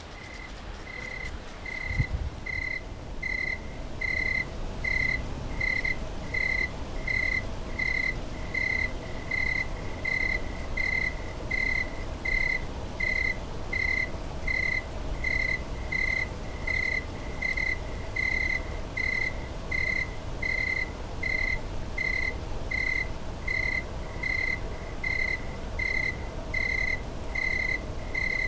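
Cricket chirping in a steady, even rhythm, about three short high chirps every two seconds, over a low rumble.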